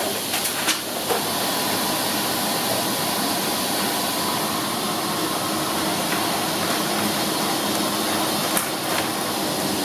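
Rice paper machine running: a steady hiss of steam over machine noise, with a few light clicks about half a second in and near the end.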